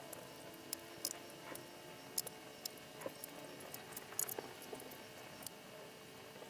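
Light, irregular clicks and taps of plastic parts being handled and fitted together while a selfie ring light and its tripod stand are assembled.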